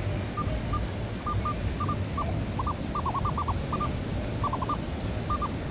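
Minelab Manticore metal detector giving short high chirps in quick irregular clusters as the coil is swept over the sand, over a steady low rumble.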